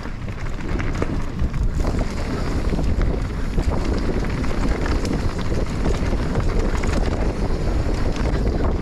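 Wind buffeting the microphone as a steady rough rumble, heaviest in the low end. It grows louder over about the first second, then holds.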